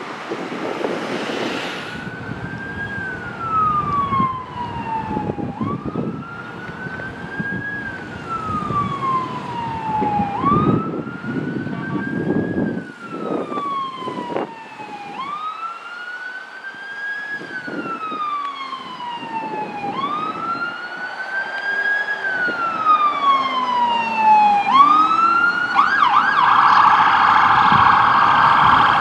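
Ambulance siren on wail. Each cycle rises quickly and then falls slowly over about five seconds. Near the end it switches to a much faster yelp and grows louder as the ambulance approaches, with wind on the microphone in the first couple of seconds.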